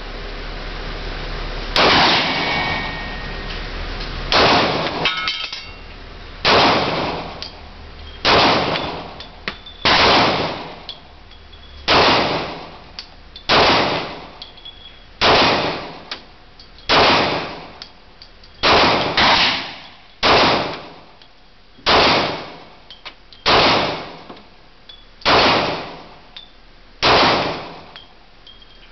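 A Smith & Wesson M&P .40 S&W pistol firing about sixteen single shots at a steady pace, roughly one every second and a half to two seconds with two quick shots close together about two-thirds of the way in. Each shot echoes in an indoor range, and a faint metallic ring follows some of them.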